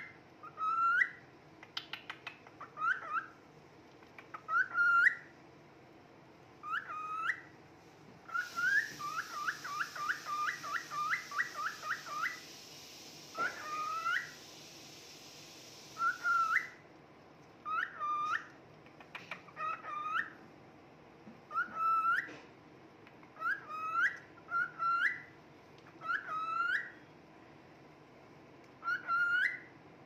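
Male cockatiel singing: short rising whistles that hook upward at the end, repeated about once a second, with a quick run of rapid whistles about a third of the way in. A steady hiss sounds for several seconds in the middle.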